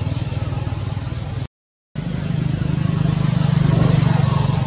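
An engine running steadily with a low pulsing hum. The sound cuts out completely for about half a second roughly a second and a half in.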